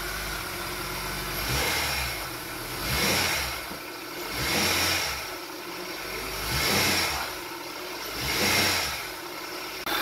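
Honda Accord 3.0-litre V6 engine idling and revved briefly about five times, each rev rising and falling back. This is a brake-torque test, revving in drive against the brakes to check how far the engine rocks on its worn engine and transmission mounts.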